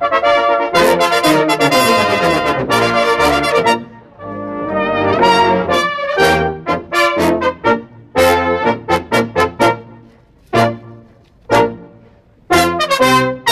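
Brass band playing a march: loud full chords at first, then short clipped chords. Two lone stabs come in a near-pause late on, and then the full band comes back in.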